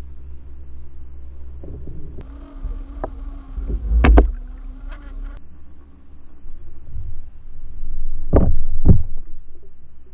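Underwater sound: a steady low hum, with a loud dull thud about four seconds in and two more close together near the end.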